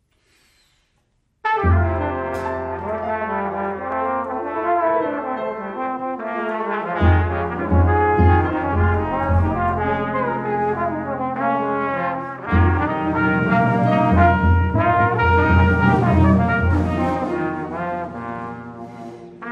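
Jazz quintet playing: trumpet and trombone sound the melody together over piano, upright bass and drums, starting about a second and a half in after a moment of near silence.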